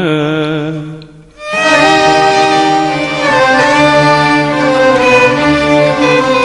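A male singer's long held note, wavering in pitch, ends about a second in. After a short break, an Arabic music ensemble of violins and accordion plays a flowing instrumental melody.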